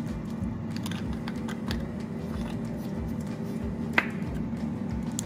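Air fryer running with a steady low fan hum, under faint plastic ticks as a squeeze-bottle cap is handled. A single sharp click about four seconds in as the cap is worked open.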